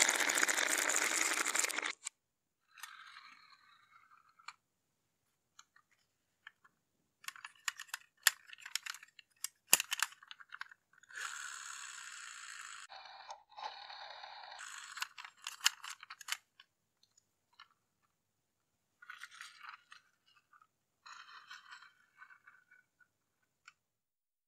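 Many marbles rolling and clattering together down grooved Cuboro wooden rails, cutting off suddenly about two seconds in. After that come scattered handling sounds: clicks and knocks as wooden blocks and a plastic toy dump truck are handled, with short stretches of scraping and rustling.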